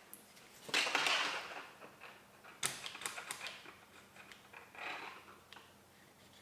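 Small plastic and metal parts of a gel blaster gearbox being handled and opened by hand: scattered clicks, taps and short scrapes, with a cluster about a second in and another about three seconds in.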